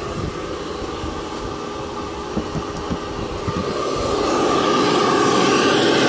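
Small Bauer shop vac motor running with a steady whine, growing louder about four seconds in. Its lid is not seated properly, so the hose is not sucking.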